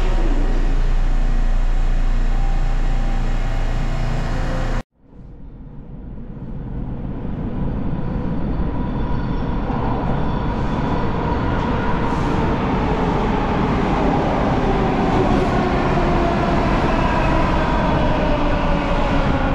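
TTC T1 subway trains in an underground station: about five seconds of steady train rumble that cuts off abruptly, then an arriving train rumbling in, growing louder, with a whine that falls slowly in pitch as it slows along the platform.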